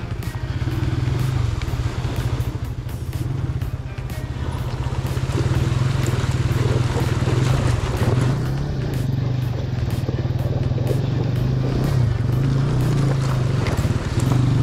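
Single-cylinder-style motorcycle engine running steadily at low revs as the bike wades through a shallow river crossing, with water splashing and sloshing around the wheels.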